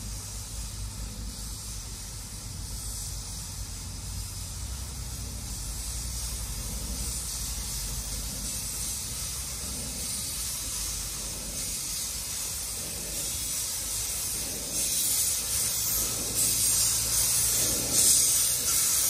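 Steam hissing from a narrow-gauge steam locomotive. It grows louder about three-quarters of the way through and surges unevenly near the end, over a steady low hum.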